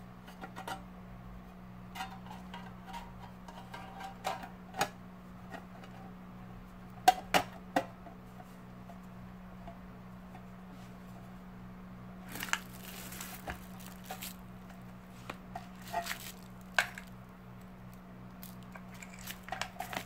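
The sheet-metal case of a computer power supply being closed up and handled, its bundled wires moved about: scattered clicks and knocks of metal, the loudest two sharp knocks about seven seconds in, and a brief scraping rustle about twelve seconds in. A steady low hum runs underneath.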